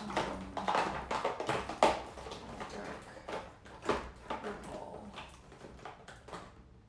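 Acrylic paint tubes being rummaged through and handled: irregular small clicks and knocks, busiest in the first couple of seconds, with two louder knocks about two and four seconds in.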